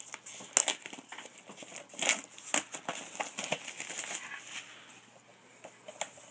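Packaging rustling and crinkling as it is pulled off a Blu-ray steelbook by hand, with several sharp crackles. It quietens near the end.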